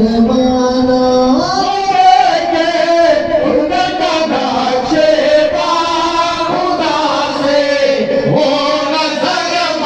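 Men singing an Islamic devotional song into microphones, a chanted melody with long held and gliding notes.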